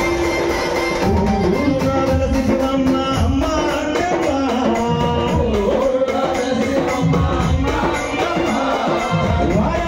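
Live instrumental passage of a Telugu devotional song: an electronic keyboard plays a gliding melody over a steady beat of drums.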